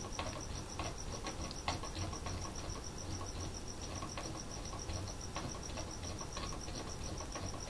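A cricket chirping steadily in an even pulse of one high tone, about nine pulses a second, over a low hum and a few faint clicks.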